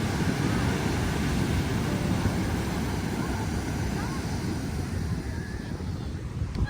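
Wind buffeting the microphone: a steady, heavy low rumble that cuts off suddenly at the end.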